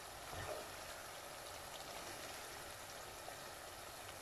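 Thick onion sauce sizzling and bubbling faintly and steadily in a pan as it cooks down, nearly ready.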